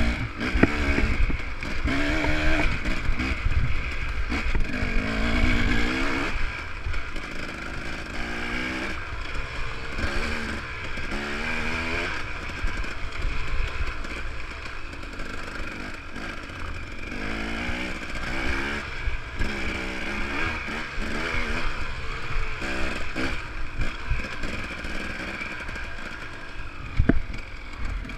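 Enduro dirt bike engine heard from the rider's helmet camera, its pitch rising and falling over and over as the throttle is opened and closed on a rough trail. Under it is a constant low rumble of wind and bumps, and there is a sharp knock about a second before the end.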